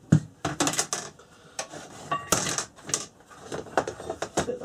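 Steel tongs clanking and clicking against a metal quench box and the hot blade, a quick irregular run of sharp metallic knocks.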